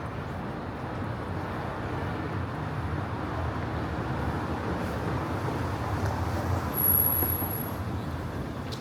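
Street traffic: a motor vehicle passes close by, its noise building slowly, peaking about seven seconds in, then easing off.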